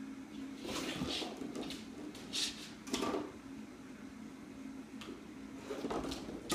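A Chow Chow puppy moving about and nosing a treat on the floor: a few short scuffs and knocks, over a steady low hum.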